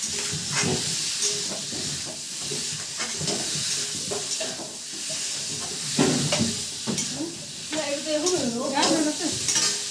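Potato pieces with ground spices sizzling in hot oil in an aluminium kadai, stirred with a metal spatula that scrapes and knocks against the pan. A voice is heard near the end.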